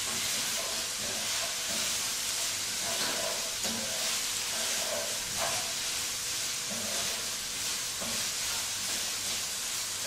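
Chicken and julienned vegetables sizzling steadily in a hot pan over medium-high heat, stirred and tossed with a wooden spatula that scrapes against the pan now and then.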